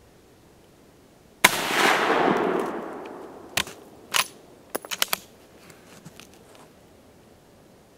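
A Mosin-Nagant M91/30 sniper rifle in 7.62×54R fires a single shot about a second and a half in, echoing for over a second. Then come a few sharp metallic clacks as the bolt is worked to eject the case and chamber the next round.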